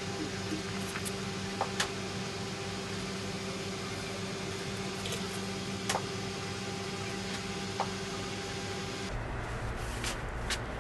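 A steady electrical hum with a few fixed tones, over which come a few faint, sharp ticks. The hum stops abruptly about nine seconds in.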